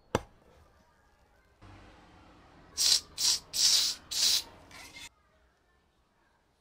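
A single sharp chop as a kitchen knife cuts through a solid rubber tricycle tyre onto a wooden board, followed a couple of seconds later by five short hisses about half a second apart.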